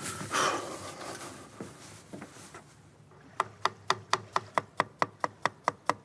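Chef's knife finely chopping onion on a wooden cutting board: quick, even strokes of about four a second, starting about halfway through. A brief rush of noise comes near the start.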